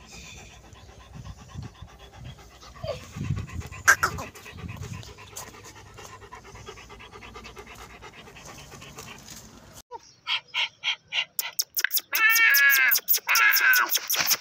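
A large Kohati Gultair dog panting. About ten seconds in, the sound cuts abruptly to louder, rapid, regular pulsing with a pitched, wavering sound over it.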